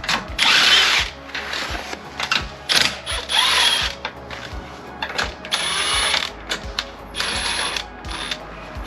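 Lug nuts on a BMW E92's rear wheel being spun off with a ratchet: about four short runs of rasping clicks with pauses between them as each nut comes off.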